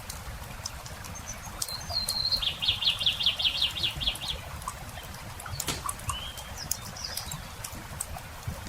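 Campfire crackling with scattered small pops, while a small songbird sings a short phrase about two seconds in: one held high note, then a fast trill of about a dozen notes, the loudest sound here. A couple of brief chirps follow later.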